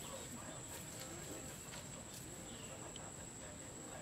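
Rice-field ambience: a steady high-pitched insect trill, with a couple of short falling bird chirps.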